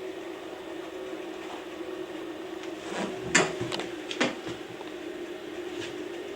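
A door being worked by an overhead hydraulic door closer: a few sharp clicks and knocks about three to four seconds in, over a steady low hum.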